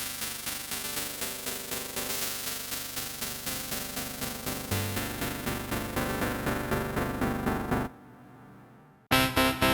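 Synthesizer music morphed with a piano through the MMorph plugin: a pitched tone pulsing fast and evenly, about five pulses a second. It cuts off about 8 s in, and after a short gap a louder pulsing pattern starts near the end.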